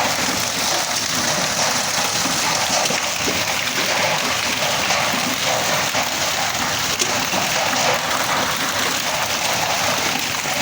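Heavy hail coming down: a dense, steady patter of hailstones, with a few sharper single hits.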